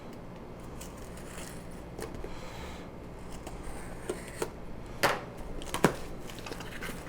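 Packaging being handled and opened: quiet rustling and scraping, with two sharp clicks, the second about a second after the first, near the end.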